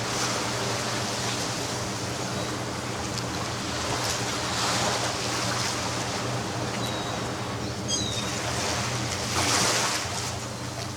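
Ocean surf washing on a sandy beach, a steady wash that swells louder twice as waves break, about four and nine seconds in. A brief high bird call comes about eight seconds in.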